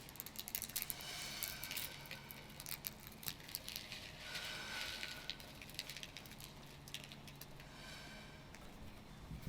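Rapid, irregular clicking, crackling and rattling of small hard objects being handled, with faint squeaky high tones now and then.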